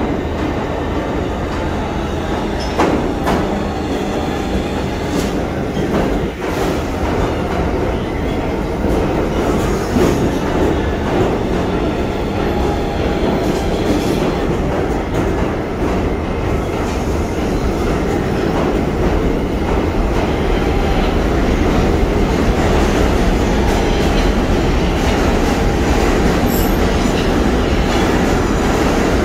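R160 subway train pulling into an underground station and running along the platform as it slows, a steady rumble with wheels clicking over rail joints.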